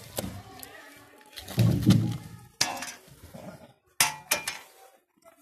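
Heavy wooden thud about one and a half seconds in, then three sharp knocks: logs being moved and knocked against one another.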